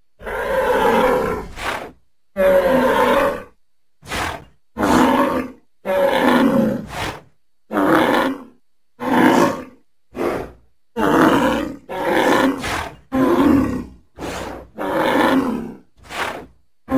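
Bull bellowing in a rapid series of short, hoarse calls, roughly one a second, with silent gaps between them.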